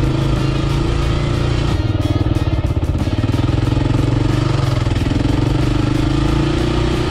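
Kawasaki KLR 650 single-cylinder engine running steadily at low, even revs while the bike is ridden two-up along a dirt bush track.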